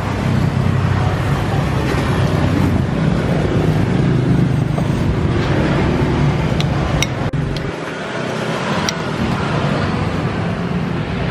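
Steady low engine hum with road traffic noise, and a few sharp light clicks about two-thirds of the way through.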